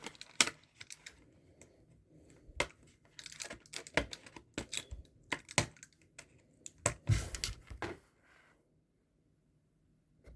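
A run of light clicks, taps and rustles from small objects being handled and set down, going quiet for the last couple of seconds.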